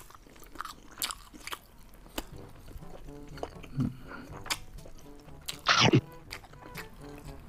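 Close-miked chewing of garlic fried chicken, with small wet clicks, then one loud bite into the chicken piece about three-quarters of the way through. Soft background music comes in a few seconds in.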